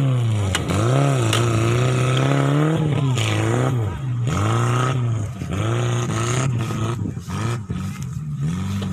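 Off-road buggy's engine revving up and down repeatedly under load as it climbs over dirt mounds, its pitch rising and falling about once a second. In the second half the sound breaks up with short crackles and dips, then settles into a steadier drone near the end.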